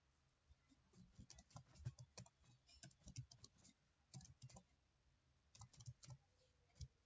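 Faint typing on a keyboard: short runs of keystrokes with brief pauses between them.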